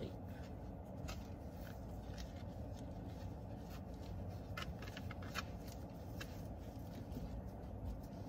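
Faint rustling and scattered light clicks of a seatbelt cover being fitted onto a car's passenger-side seatbelt, over a low steady rumble.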